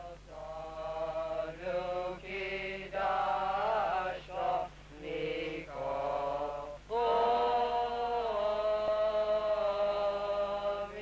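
Choir singing a slow liturgical chant: several short sung phrases with brief breaks between them, then a long held chord from about seven seconds in.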